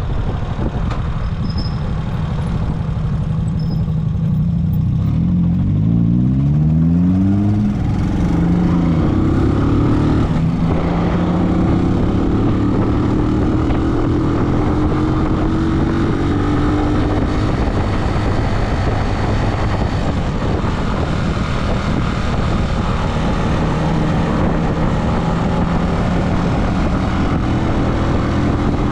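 A road vehicle's engine under way. Its pitch rises steeply twice between about five and eight seconds in, as when accelerating through a gear change. After that it runs at a steadier pitch that climbs slowly, over a constant low rumble.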